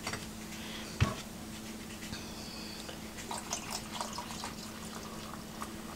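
Beer being poured from a glass bottle over ice into a glass, fizzing with small crackles and ticks, after a single sharp knock about a second in. A steady low hum runs underneath.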